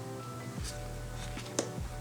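Gentle background music with held notes. Over it come a few sharp clicks of tarot cards being handled during a flip-through, the loudest about a second and a half in.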